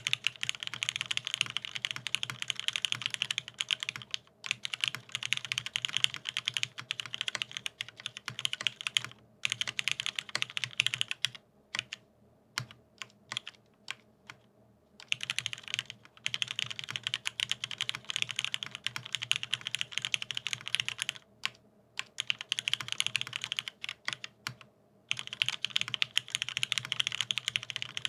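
Fast continuous typing on a mechanical keyboard with lubed vintage Cherry MX Black linear switches on an aluminium plate and Cherry dye-sub keycaps, a dense run of keystroke clacks. It breaks off a few times, with the longest gap lasting about three seconds a little before the middle.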